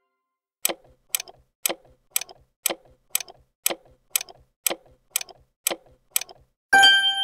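Clock ticking sound effect, about two ticks a second, a dozen ticks in all, counting down to the next question. A single chime then rings out near the end.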